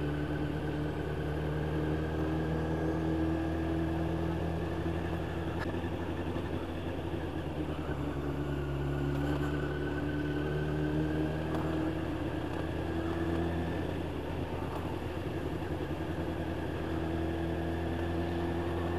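Motorcycle engine running steadily at road speed, its note rising and falling a little with the throttle, under wind and road noise.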